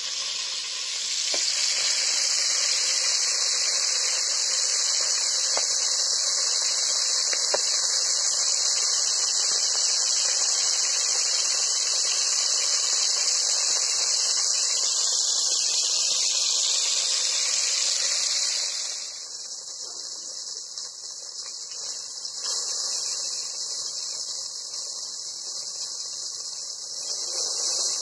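Chicken pieces frying in oil in an aluminium pot, a steady sizzle that drops noticeably softer about two-thirds of the way through.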